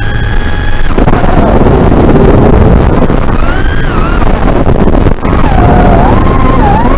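Small FPV quadcopter in flight, heard through its onboard camera microphone: loud rushing wind and propeller noise with a motor whine that holds one pitch for about the first second, then slides up and down as the throttle changes.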